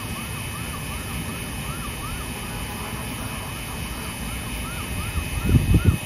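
A distant emergency-vehicle siren going up and down in pitch about twice a second, over a steady low rumble. Near the end comes a short burst of loud, choppy low thumping.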